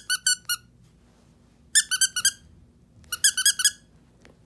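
Squeaker in a small plush teddy-bear dog toy being squeezed, high-pitched squeaks coming in three quick bursts of four or five, about a second and a half apart.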